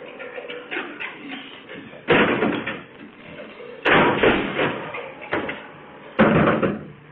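Three loud bangs about two seconds apart, each followed by a short clatter: a garbage truck's automated arm emptying a wheeled trash bin into its hopper.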